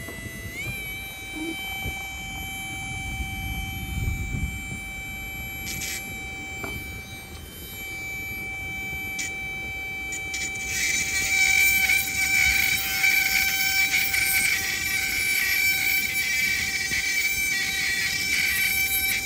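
Electric rotary micro-drill running with a steady high whine, its pitch stepping up slightly about half a second in. From about ten seconds in a gritty grinding hiss joins the whine and it gets louder as the fine bit cuts into the carnelian agate bead.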